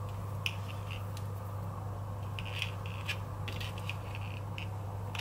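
Waxed thread being looped and drawn into a knot with a needle: short, faint scratchy rustles of thread over a steady low hum.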